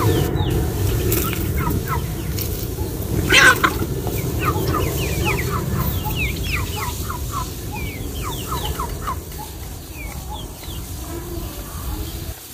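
Chickens clucking in a run of short, downward-sliding calls over a steady low rumble, with one brief sharp sound about three and a half seconds in.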